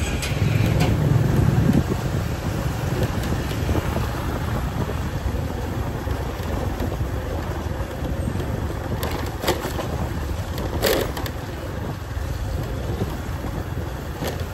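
Motorbike ride through city traffic: a steady engine and road rumble with wind buffeting the microphone, and a few brief sharp sounds from the street near the middle.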